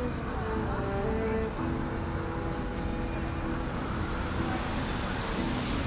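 City street ambience: a steady wash of traffic and street noise with faint voices of passers-by.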